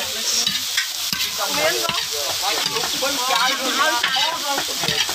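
Crickets roasting in a large aluminium wok, tossed with a metal spatula: a steady sizzle and rustle of the insects, with the spatula scraping and knocking on the pan.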